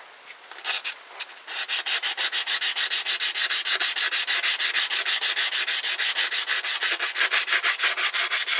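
Hand-sanding the metal mating flange of a Toyota 4Runner's differential third member with a small piece of sandpaper. It starts with a few scrapes, then from about a second and a half in settles into fast, even back-and-forth strokes, several a second. This cleans up the sealing surface for RTV.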